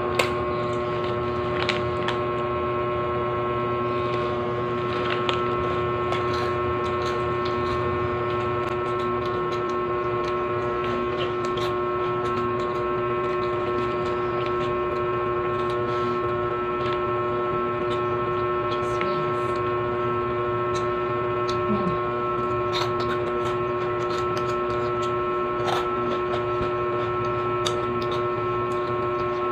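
A steady hum of several held tones, with scattered light crinkles and crunches from a foil snack bag being picked through and cheese-ring snacks being eaten.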